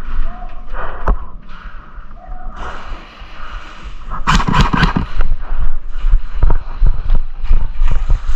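Irregular sharp clicks and knocks, with a louder noisy burst about four seconds in.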